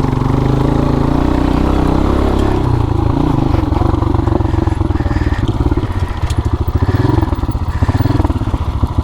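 Dirt bike engine running at low speed on a rough trail. Its note is smooth for the first few seconds, then turns to a rapid, even throbbing.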